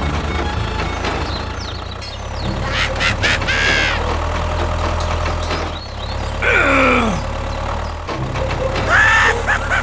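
A steady low engine-like rumble, with several short high squeaky sounds gliding in pitch over it; one falls sharply about six and a half seconds in.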